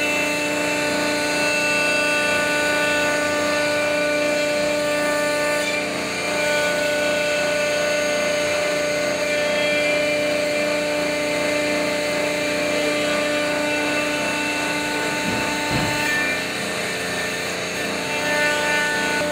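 CNC router spindle running at a steady high whine while its bit cuts a profile into a block of wood, with the hiss and rasp of chips being thrown into the brush dust shoe.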